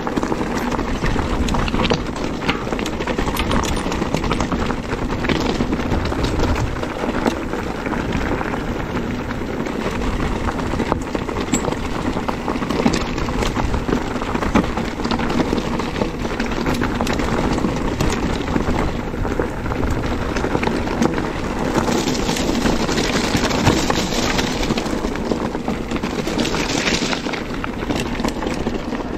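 An electric mountain bike ridden down a rough trail: wind rushing over the camera microphone, with the bike clattering and rattling over rocky ground.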